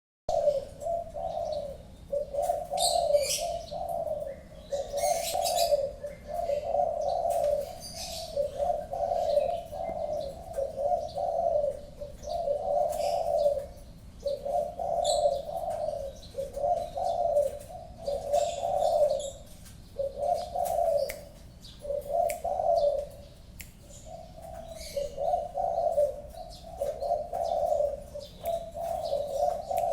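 Spotted dove (tekukur) cooing over and over, each low phrase a second or two long with only short breaks between them. Other small birds chirp higher up in the background.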